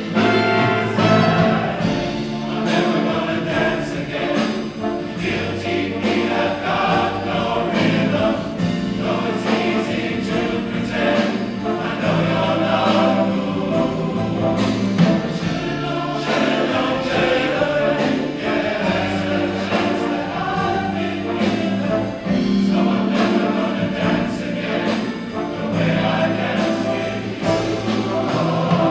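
A large men's chorus singing in harmony, holding long notes.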